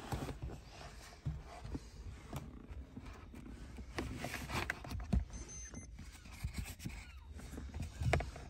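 Handling noise: rustling, rubbing and small knocks as a hand-held diagnostic tool and phone are moved about against a car seat, over a low rumble.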